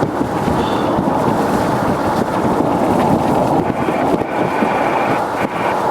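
Steady rushing noise of a car on the move: road and wind noise, with wind buffeting the microphone. A faint high whine joins a little past halfway.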